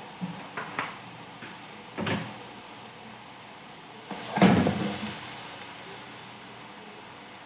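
A plastic container clicks and knocks as it is handled, then coconut milk is poured from it into a hot aluminium wok of shredded cabbage: a splash about four and a half seconds in, fading into a soft hiss.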